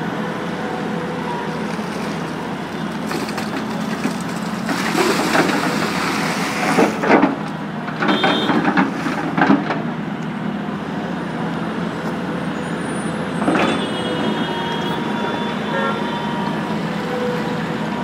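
Tata Hitachi EX200 excavator's diesel engine running steadily while it digs, with bursts of scraping and clattering from the bucket in rock and soil between about five and ten seconds in, and one more hit near the end.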